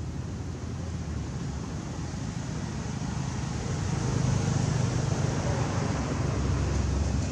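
Steady low rumbling background noise with a hiss over it, growing a little louder about four seconds in.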